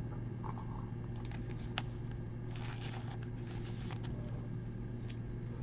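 Soft rustling and a few light clicks of a trading card being handled and slid into a plastic sleeve, over a steady low hum.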